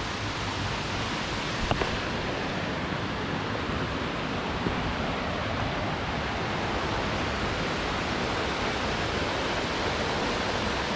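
Pistyll Cain waterfall: a steady, unbroken rush of falling water.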